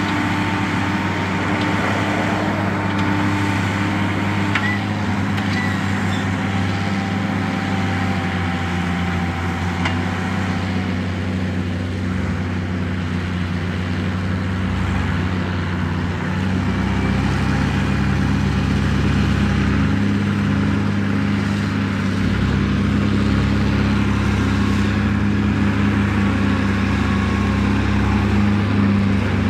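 Diesel engine of a Track Marshall crawler tractor running steadily under load while ploughing, growing a little louder about halfway through.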